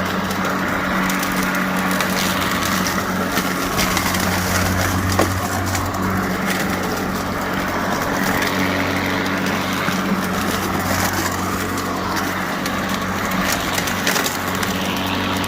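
Greenworks 80V battery push mower running in mulching mode: its electric blade motor hums steadily while the blade chops dry leaves with a crackling, crunching rattle.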